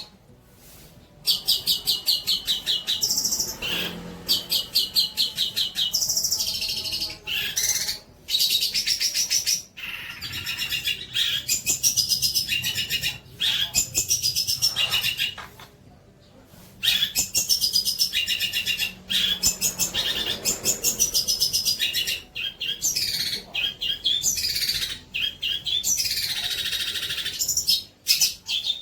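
Songbird singing a varied, fast song of rapid repeated high notes, chattering trills and whistled slides, in phrases broken by short pauses.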